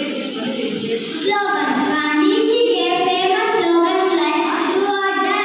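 Children singing a song, with long held notes; the singing gets louder about a second in.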